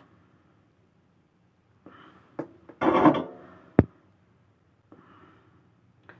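Hands handling parts and wires on a workbench: short rubbing and scraping sounds, then one sharp click a little before four seconds in.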